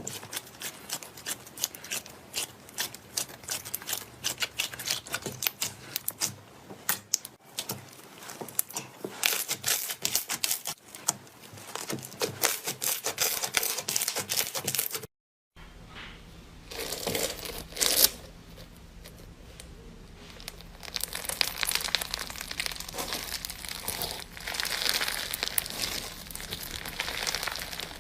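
Slime being squeezed and worked by hand, making dense wet crackling and popping. It breaks off in a short silence about halfway through, then starts again softer and builds back to a steady crackle.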